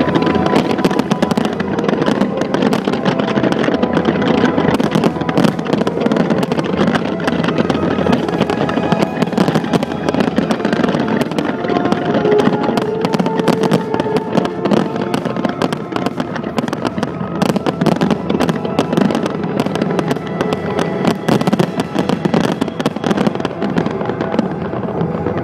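Fireworks display: a dense, continuous crackle of many shells bursting, with music playing alongside.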